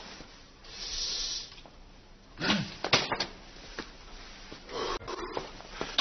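A boy snoring as he dozes, a few rough drawn-out snores a couple of seconds apart, with a couple of light knocks about halfway through.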